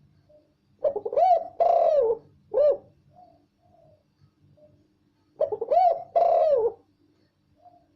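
Spotted dove (tekukur) cooing loudly: two song phrases about four and a half seconds apart, each a run of a few arching coos.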